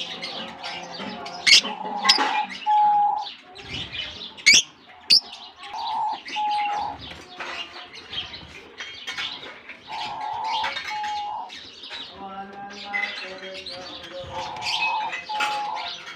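A colony of lovebirds chirping, with many short, sharp calls overlapping throughout. A lower, steadier call recurs about every four seconds.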